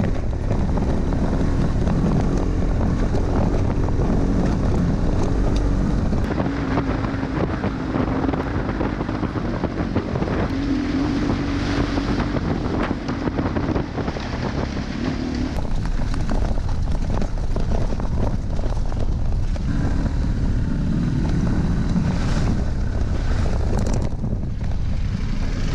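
Big twin-cylinder adventure motorcycle riding a gravel track, its engine note rising and falling with the throttle, with wind buffeting the onboard camera's microphone.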